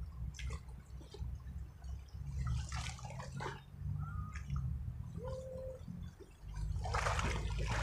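Flooded river water rushing, with a steady low rumble underneath and several short bursts of hissing noise, the loudest near the end.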